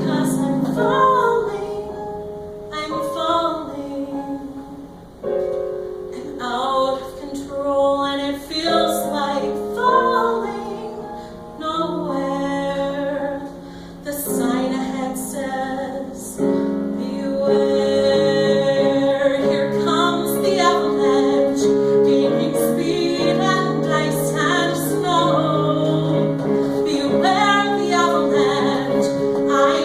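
A woman singing a musical theatre song to piano accompaniment, the music building and staying fuller and louder from a little past halfway.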